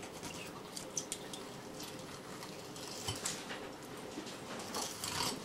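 Kitchen knife scraping and cutting along a sea bream on a wooden cutting board: short, scattered scratchy strokes, with a few stronger ones about three seconds in and near the end.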